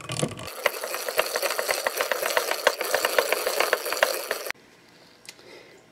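Hand-cranked Daisy butter churn turning: its metal gears and paddle make a fast, steady rattle of clicks while heavy cream splashes inside the glass jar. It stops suddenly about four and a half seconds in.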